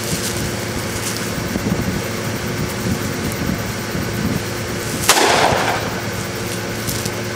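A single handgun shot about five seconds in, sharp with a short ringing tail, over steady background noise.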